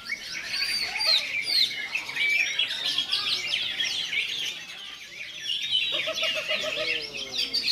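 Songbirds singing a dense run of fast, overlapping chirps and warbles, high-pitched and continuous.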